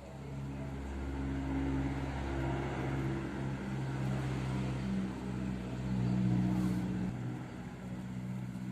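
An engine running steadily, getting louder and then easing back a little about seven seconds in.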